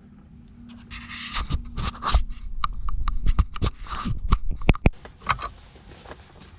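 Close handling noises: a run of scrapes, rustles and sharp clicks and knocks between about one and five and a half seconds in, as fishing gear is handled on the ice.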